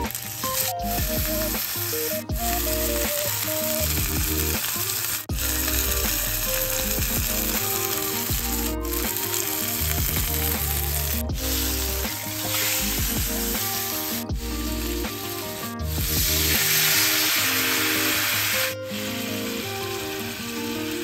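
Ground beef-and-pork hamburg patty sizzling steadily as it fries in olive oil in a frying pan, the sizzle briefly cut off a few times. Near the end it swells louder for a couple of seconds as red wine hits the hot pan. Background music plays under it.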